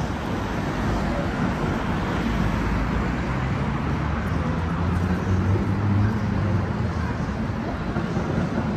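Steady low rumble of motor vehicles, with a low engine hum that swells slightly midway.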